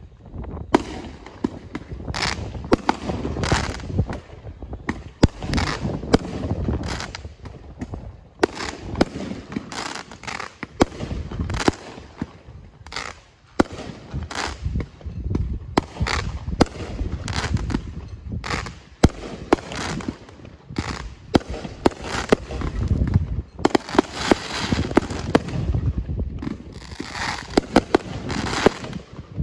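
Aerial fireworks launching and bursting in a rapid, continuous barrage of sharp bangs, several a second.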